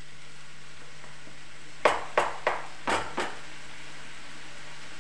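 A spatula knocking sharply against a kadhai five times in quick succession, the first knock the loudest, over a faint steady hum.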